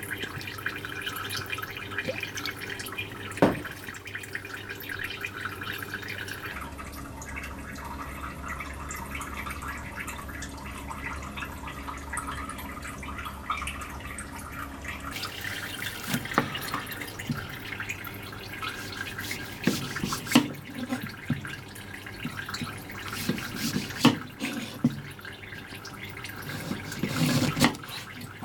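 A kitchen knife slicing a lemon on a plastic cutting board, giving a few sharp knocks as the blade hits the board in the second half, over a steady background hiss and hum.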